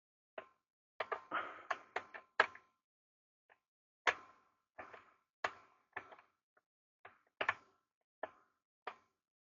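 Irregular sharp clicks and knocks of a chainsaw and its parts being handled, about a dozen in all, with the loudest about two and a half seconds in.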